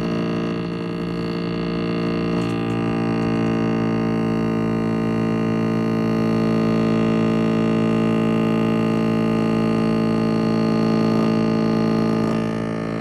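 GE Twin Cool refrigerator making its periodic loud grinding noise: a steady, buzzing drone that holds one pitch throughout.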